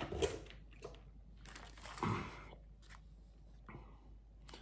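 Plastic bait packaging crinkling and rustling, with a few light clicks, as packs of soft plastic baits are handled.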